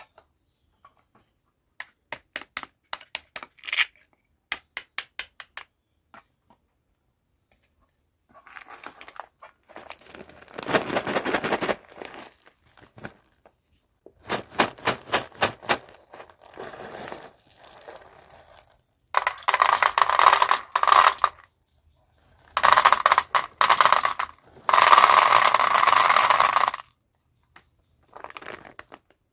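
Candy packaging being handled: a quick run of small clicks and taps, then several bursts of wrapper crinkling and tearing, each lasting one to a few seconds.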